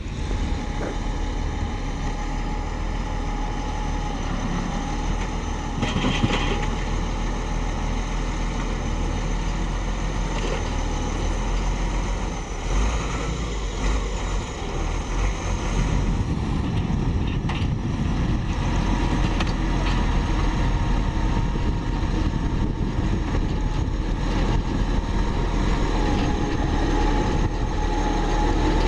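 Diesel engines of heavy road-construction machinery running steadily, with a steady whine over the engine noise and a brief clatter about six seconds in.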